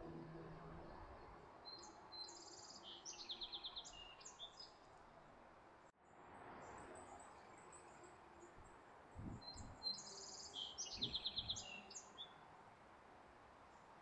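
A small songbird sings the same short song twice, some eight seconds apart. Each song is a few quick high notes followed by a fast trill. Faint low thumps sound under the second song.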